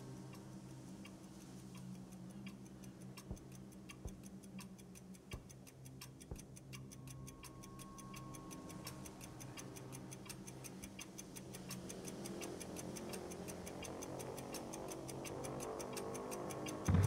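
Film-score music: a steady clock-like ticking over low sustained drone tones. The music slowly swells in the second half, and a deep low hit lands at the very end.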